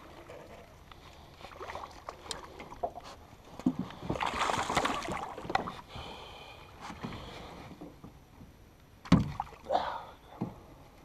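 A hooked bass splashing and thrashing at the surface beside an aluminum jon boat as it is reeled in, the main splash about four seconds in, then a sharp thump about nine seconds in as it is lifted aboard, with light clicks and knocks around it.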